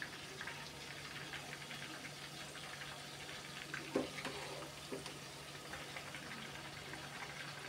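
Chicken pakoras deep-frying in hot oil, a steady crackling sizzle. About four and five seconds in come two short knocks of the steel slotted skimmer against the pan.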